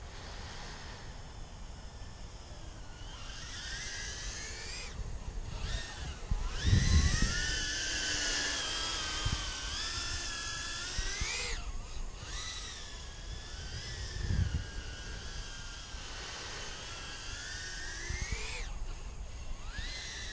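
Small 85 mm whoop quadcopter's brushless motors on 3S whining, the pitch rising and falling as the throttle changes, cutting out briefly three times when the throttle is chopped. A few short low rumbles come in among the whine.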